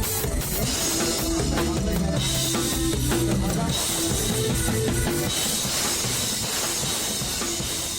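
Live mor lam band music with the drum kit up front: bass drum and cymbal strikes over held notes from the band.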